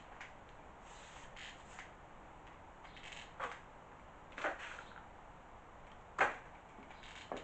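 A few short clicks and knocks from a hot glue gun being worked and set against the plastic viaduct model, the loudest about six seconds in.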